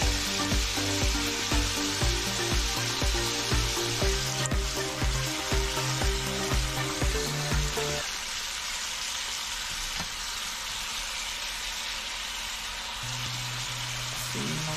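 Eggplant and pork stir-frying in a pan, a steady sizzle throughout. Background music with a beat runs under it, thinning out about halfway through to a held low note.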